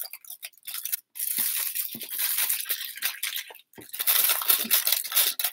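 Aluminium foil crinkling and crackling as a foil packet is folded and crimped shut by hand, in two long stretches with a brief pause about three and a half seconds in.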